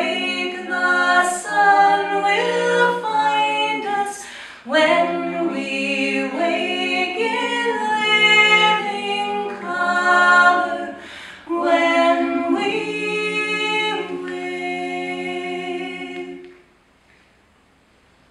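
Three women's voices singing close harmony a cappella in long held phrases, with two short breaks between phrases. The final chord is held, then fades out a couple of seconds before the end, leaving near quiet.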